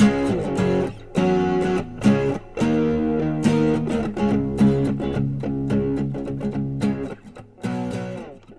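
Background music: guitar strumming chords.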